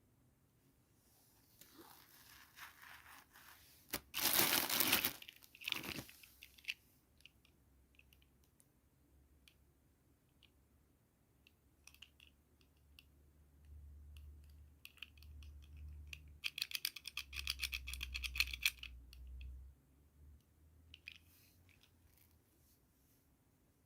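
Toy packaging being unboxed by hand: a loud tearing sound about four seconds in, then a longer stretch of crinkling and rapid clicking later on.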